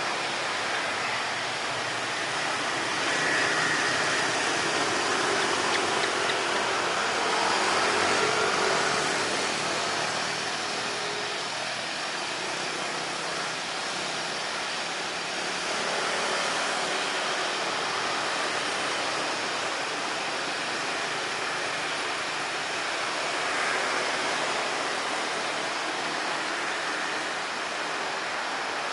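A steady, even rushing noise of an airport apron, swelling slightly a few seconds in, with faint brief whines over it.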